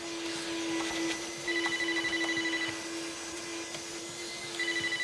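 Handheld vacuum cleaner running with a steady hum and hiss. Over it a cordless phone rings twice, each ring a fast electronic trill about a second long.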